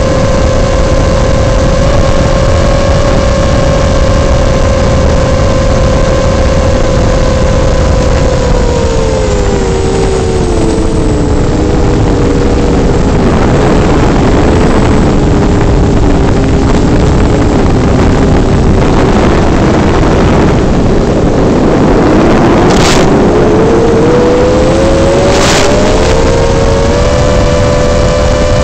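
Micro quadcopter's motors whining over a heavy steady hiss. About eight seconds in the whine falls in pitch as the throttle comes off for the dive, stays low and unsteady, then rises back up near the end as power comes on again. Two short clicks come near the end.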